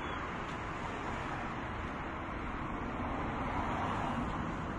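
Steady outdoor street noise from road traffic, swelling slightly about three seconds in as a car drives past.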